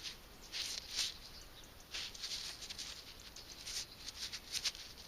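Fingers rubbing and crumbling soil off a freshly dug find, making scratchy rustling in several short irregular bursts.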